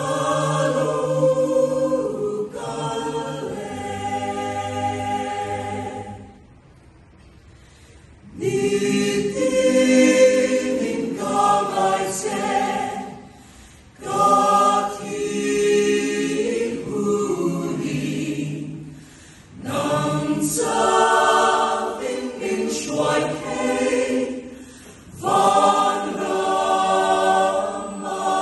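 Mixed choir of men's and women's voices singing a cappella in Mizo, holding chords phrase by phrase. The voices rest for about two seconds about six seconds in, with shorter breaks between later phrases.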